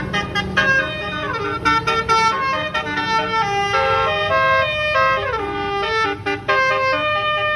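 A bus's basuri musical horn playing a tune: chords of held notes stepping from pitch to pitch, with a few sliding drops between notes.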